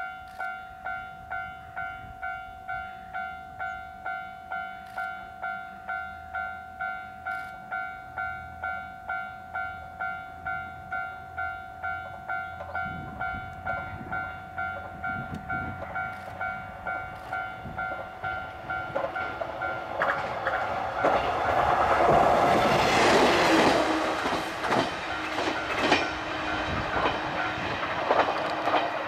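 Level-crossing warning bell ringing in even pulses, about one and a half a second, as a KiHa 120 diesel railcar approaches. About two-thirds of the way through, the railcar's engine and wheel clatter grow loud as it passes close by. The bell stops near the end, and the engine noise fades as the railcar moves away.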